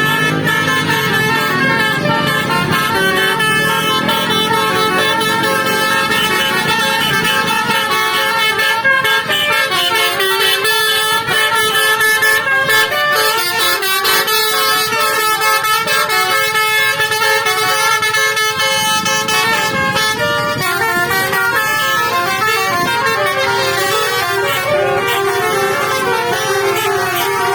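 Bus telolet basuri horn, a multi-trumpet musical air horn on a bus, playing a tune continuously: several loud horn tones sound together and step from note to note.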